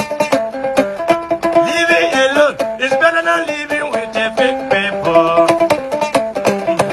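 Music with a fast plucked melody of short, quickly repeated notes. A wavering higher melodic line joins in about two seconds in and again near five seconds.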